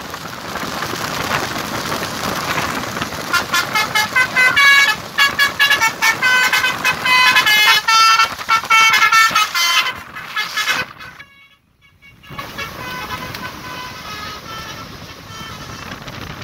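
Bus telolet horn, a multi-tone musical air horn, playing rapid runs of short toots at shifting pitches. It drops out briefly about eleven seconds in, then goes on more faintly.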